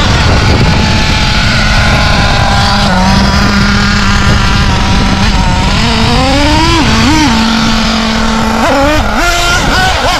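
Nitro RC buggy engine idling on a steady high note. About six seconds in it revs in a rising sweep, then in several short blips near the end as the buggy pulls away.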